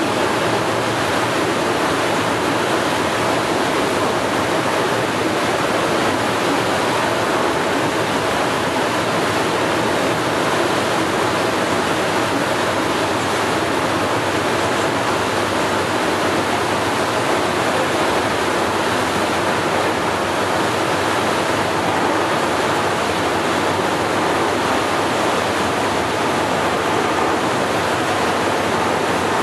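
Steady rush of water and spray with a faint mechanical hum underneath, from a high-speed boat running at speed, unchanging throughout.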